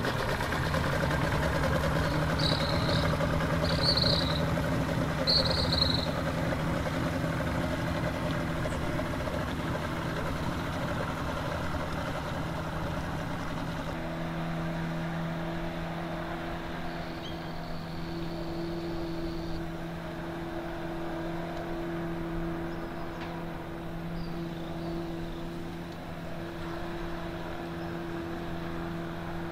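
Yamaha 115 Enduro two-stroke outboard motor running at low speed as the boat pulls away from the dock, with three short high chirps a few seconds in. About halfway through, the sound changes to a steadier engine tone as the boat motors past under way.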